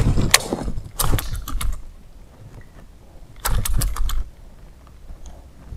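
Fishing rod and baitcasting reel clicking and knocking in quick runs of several clicks as an artificial lure is twitched and reeled in, three bursts with short quiet gaps between.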